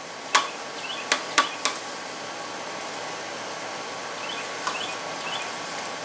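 A fork clicking against a plastic meal tray four times in the first two seconds while food is gathered onto it, over steady background noise. A few faint, short high chirps come around one second in and again later.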